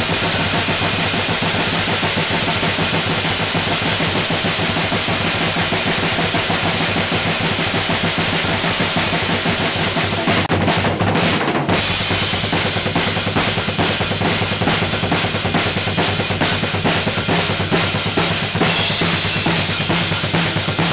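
Music with a prominent drum kit (bass drum, snare and cymbals) playing steadily, with a short break in the high end about ten seconds in.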